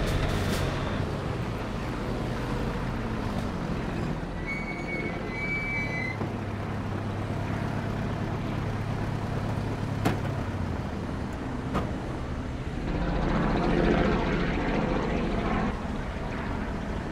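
Engines of military off-road vehicles running with a steady low hum, growing louder and rougher about thirteen seconds in as the vehicles pull up.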